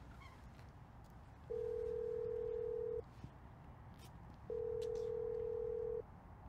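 Telephone ringback tone: two long, steady beeps of about a second and a half each, with a pause of the same length between them, while the called taxi line rings unanswered.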